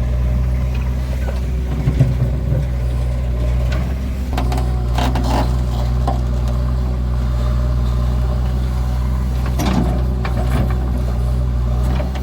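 Heavy diesel engine of a backhoe loader or tractor running steadily, with a few short clanks about two, five and ten seconds in.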